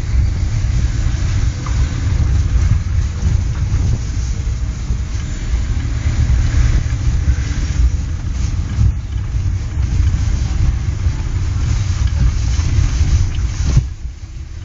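Steady low rumble of a moving car heard from inside the cabin, road and wind noise, dropping sharply near the end.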